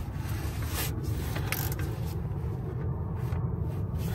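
A hand wrench tightening an engine mount bolt, with a couple of short metallic clicking strokes in the first two seconds, over a steady low rumble.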